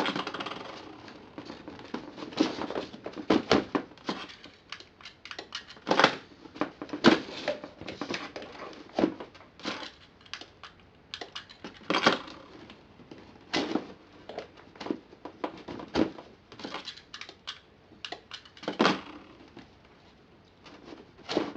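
Irregular clicks and knocks from handling a remote control surge protector: plugs going into its outlets and buttons on its remote being pressed.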